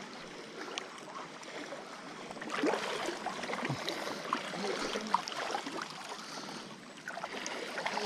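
Splashing and sloshing water in a shallow creek, with people wading through it. It grows louder about two and a half seconds in, with small splashes scattered through it.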